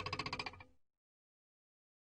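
The end of an editing sound effect: a fast pulsing, rattling sound, about fifteen pulses a second, that fades and stops within the first second, followed by complete silence.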